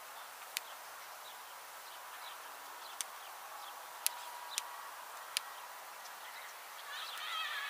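Five sharp, irregularly spaced taps of a soccer ball being juggled, over open-field ambience with faint bird chirps. A short, louder warbling call comes near the end.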